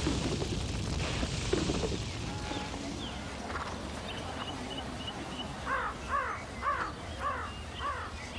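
A bird calling in a regular run of short, rising-then-falling calls, about two a second, beginning a little past halfway. A steady rushing noise fades away over the first few seconds.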